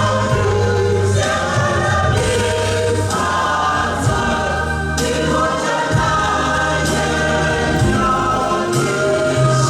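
Choir singing a gospel hymn with accompaniment, many voices holding notes at a steady, full level.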